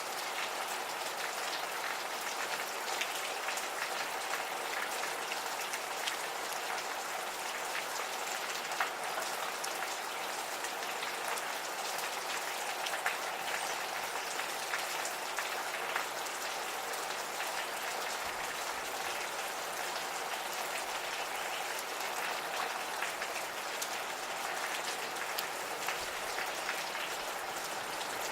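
Gentle rain falling steadily, with individual drops ticking sharply here and there.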